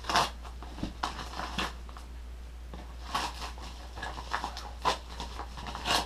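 Yellow padded paper mailer being torn open by hand: irregular bursts of paper ripping and crinkling, with the sharpest rips at the start and near the end.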